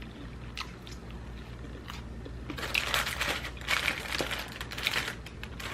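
Close-miked chewing of crispy fried food, a run of crisp crunches starting about two and a half seconds in.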